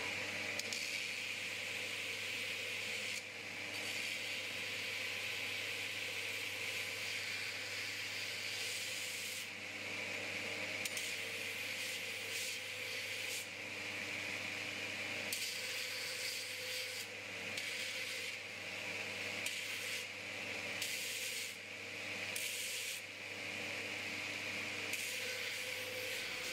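Belt grinder running with a steady motor hum, a piece of steel pressed against the belt in repeated passes: a loud hissing grind that breaks off for a moment each time the steel is lifted off.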